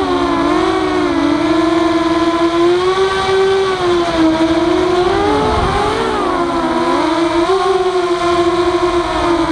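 Walkera F210 racing quadcopter's brushless motors and propellers whining, the pitch rising and falling with the throttle; about halfway through the motors' tones briefly split apart as they run at different speeds through a turn.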